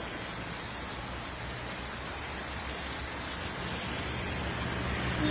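Steady rushing noise of the swollen flood river below the bridge. In the last second or so a vehicle's engine hum grows louder.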